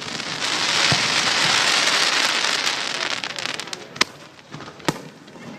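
Fireworks in a grand finale: a dense crackling swells and fades over about three seconds, then two sharp bangs about a second apart.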